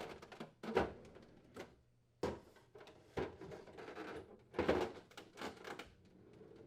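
Refrigerator drawer bins being set into the pantry drawer: a few separate knocks with light sliding and scraping between them.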